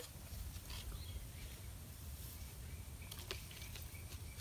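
Faint outdoor ambience: a low steady rumble, with a sharp click at the very start, a smaller click about three seconds in, and a faint high chirp-like tone near the end.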